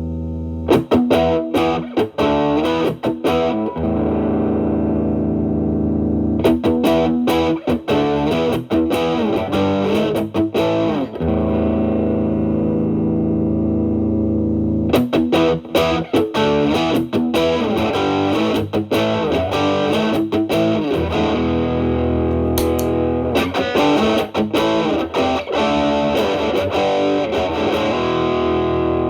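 Stratocaster through a Xotic BB Plus preamp, Channel A stacked into a high-gain Channel B, into a Marshall Valvestate amp: heavily distorted electric guitar playing picked blues phrases, broken by long held chords that ring out for several seconds.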